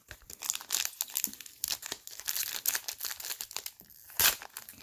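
Plastic wrapper of a retail football trading card pack crinkling and tearing as it is opened by hand, with irregular crackles and one louder crackle about four seconds in.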